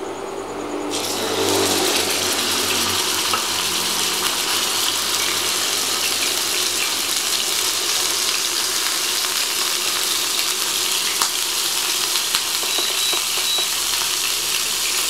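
Beef steak sizzling in hot olive oil in a frying pan: the sizzle starts suddenly about a second in as the meat goes into the oil, then holds as a steady hiss with occasional small pops.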